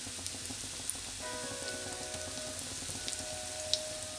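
Bread cubes deep-frying in hot oil in a kadhai: a steady sizzle with scattered sharp crackles and pops.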